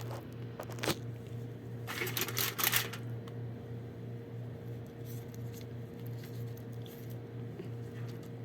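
Hands handling food during kitchen prep: two sharp clicks in the first second, then about a second of rustling around two seconds in, over a steady low electrical hum.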